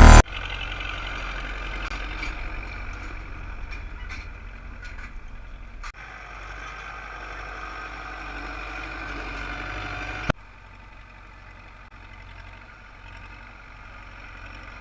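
Diesel engine of an MTZ-82 tractor, a four-cylinder diesel, running steadily with a low rumble while working a cultivated field. The level drops abruptly about six seconds in and again about ten seconds in, after a brief click.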